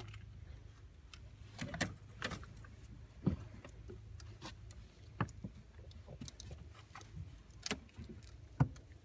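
About half a dozen sharp metallic clinks and knocks at irregular intervals over a steady low hum.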